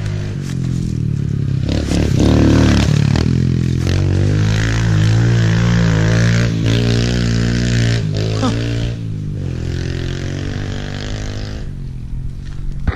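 Kawasaki KLX pit bike's small four-stroke single-cylinder engine revving up and down as the bike rides past. It is loudest from a couple of seconds in to about the middle, then fades, with a shorter rise near the end.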